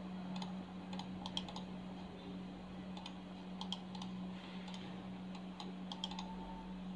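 Computer keyboard keys being tapped irregularly, a few short clicks at a time, over a steady low hum.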